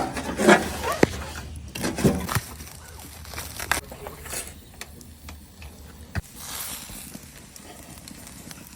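Brief bits of people's voices, with scattered sharp clicks and knocks.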